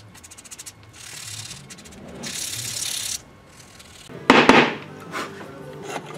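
Hand sanding of a sealer-coated carved wooden lure body with a strip of sandpaper: a run of short quick strokes, then longer hissing strokes. About four seconds in there is one loud, sharp scrape or knock, after which faint background music comes in.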